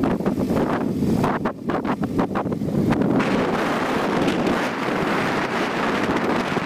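Wind buffeting the microphone of a helmet camera on a slowly moving motorcycle, coming and going in gusts, over the motorcycle's engine running.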